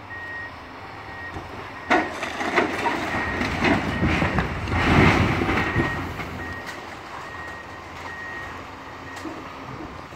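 Brick masonry being torn off the top of a wall by an excavator and crashing down: a sharp crack about two seconds in, then clattering knocks, building to the loudest crash about five seconds in, which dies away within a second. A machine's backup alarm beeps steadily throughout.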